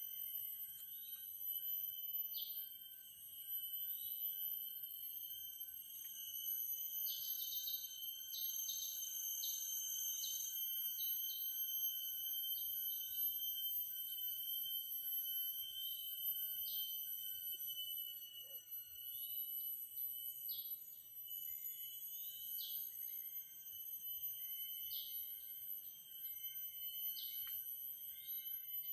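Forest insects shrilling in several steady high tones, with short chirps recurring every second or two.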